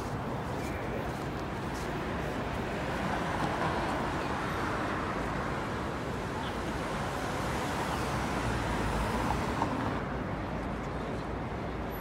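City street traffic at a busy intersection: cars and taxis driving past, the steady noise swelling as vehicles go by a few seconds in and again about three-quarters of the way through.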